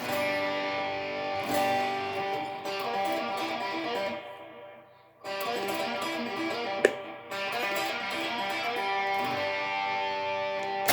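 Electric guitar playing a lead lick off the G five-note (pentatonic) scale, twice, each phrase a run of picked notes ringing out. A sharp click about seven seconds in.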